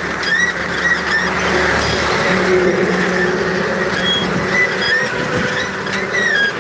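Road traffic: vehicle engines running and a bus passing close by, with short high chirps or squeals now and then.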